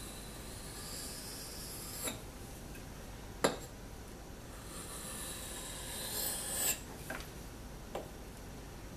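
Steel hatchet blade scraping across a wet 1000/4000-grit combination whetstone in two slow sharpening passes, with a few sharp clicks of steel on stone, the loudest about three and a half seconds in.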